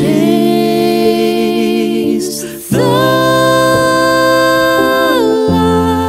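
Music: a song in which a woman's voice holds two long notes with vibrato over sustained chords, with a short break between them and the second note dropping in pitch near the end.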